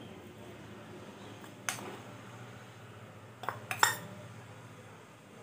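Steel spoon clinking against stainless steel bowls while spice powder is scraped out into the mango: a single clink under two seconds in, then a quick cluster of three clinks just under four seconds in.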